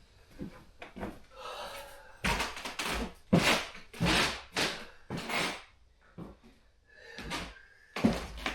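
A run of heavy, irregular thumps on wooden attic floorboards, roughly one to two a second, starting about two seconds in after a quieter stretch of small knocks.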